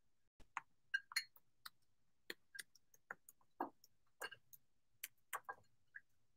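Faint, irregular light clicks and taps, a dozen or more scattered across a few seconds with silence between them, like small objects being handled or a fingernail on a hard surface.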